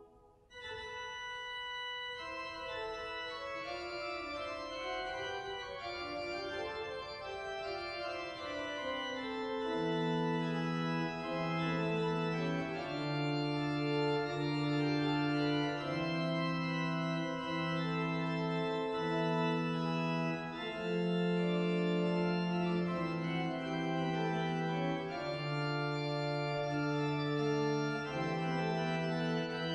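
Chapel pipe organ playing slow held chords, with lower sustained notes joining about ten seconds in.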